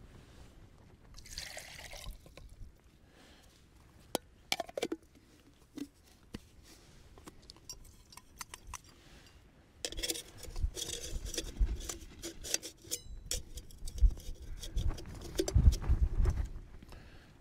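Metal clinks and knocks of a backpacking stove system's pot, lid and burner being handled and fitted together, with a short rushing, pouring-like sound about a second in and a longer stretch of rushing and clattering in the second half.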